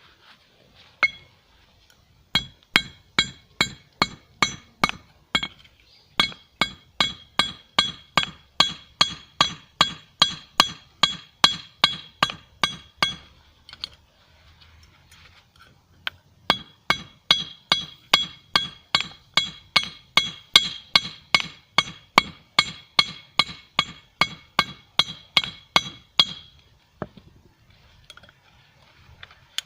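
Hand hammer striking a red-hot steel screw on a small 25 lb anvil, drawing it out into a blade: steady blows about three a second, each with a bright metallic ring, in two long runs separated by a pause of a couple of seconds.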